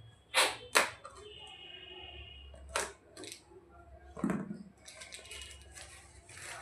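Parcel packaging being opened by hand: two loud sharp snaps close together near the start and another about three seconds in, a low thump after four seconds, then rustling of the wrapping.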